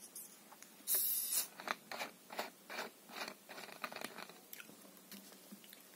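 Cap being twisted on a plastic soda bottle: a short hiss of escaping gas about a second in, then a run of crackles and clicks as the cap and plastic are worked.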